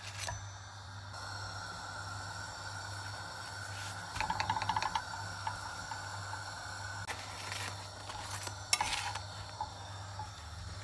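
Slotted metal spatula scraping and tapping on a hot tawa griddle as pita bread is pressed and turned, in two short bursts of rapid clattering, about four seconds in and again near nine seconds, over a faint steady hiss.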